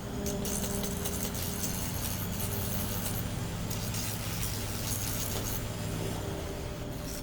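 Small metal parts and tool bits clinking and rattling, many light clicks, over a steady low hum.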